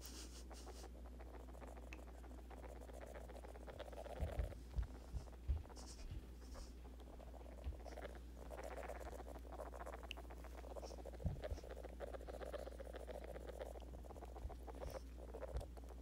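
Hairless pet rat making its happy noises: a soft, rapid clicking chatter close to the microphone. A few low knocks from handling come about four to five seconds in and again near the middle.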